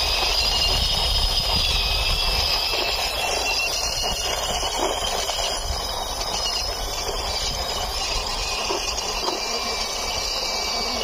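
Plastic toy helicopter pushed by hand on its wheels along a rough concrete surface: a steady rolling grind with a high whirring whine that drifts slightly up and down in pitch.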